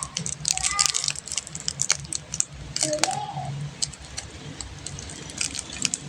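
Plastic candy wrappers crinkling and crackling in irregular short bursts while being unwrapped, with a few short arched tones in between.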